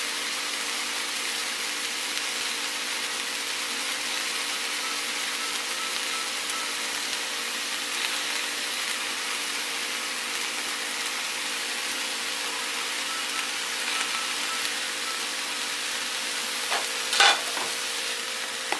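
Mushrooms, red onion and garlic frying in olive oil in a pan: a steady sizzle, with a couple of short knocks of a utensil against the pan near the end as it is stirred.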